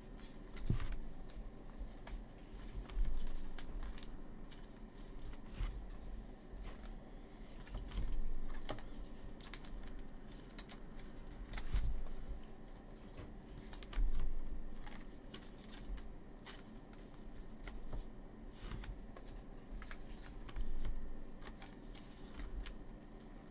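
Baseball trading cards and a plastic pack wrapper being handled: a run of light clicks and snaps of cards with crinkling rustles that swell louder every few seconds.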